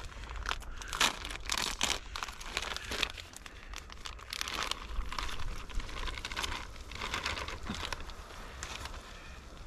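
Plastic pouch of Simply Potatoes crinkling and tearing as it is handled, opened and shaken out into a frying pan, in short irregular crackles.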